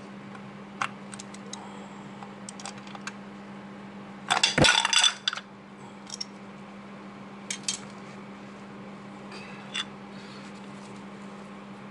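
Small metal parts and tools clinking against each other and the engine casing during work on the scooter engine's water pump, with a louder spell of metallic rattling and a knock about four and a half seconds in.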